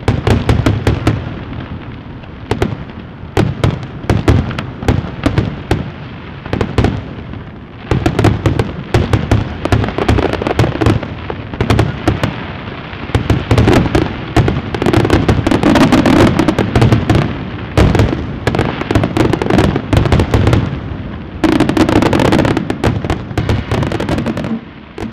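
A long, dense run of fireworks crackling and popping in rapid succession, loud and nearly continuous, with brief lulls about eight and twenty-one seconds in.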